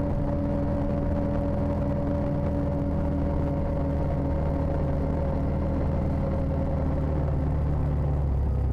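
Side-by-side UTV's engine and drivetrain running steadily while cruising on pavement, with tyre and road noise, heard from inside the open cab. The drone's pitch eases slightly near the end.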